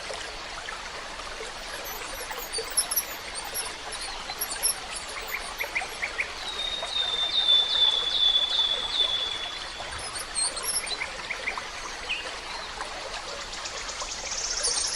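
Forest stream trickling and burbling steadily, with small songbirds calling over it; around the middle one bird sings a run of quick down-slurred notes, and high chirps come and go.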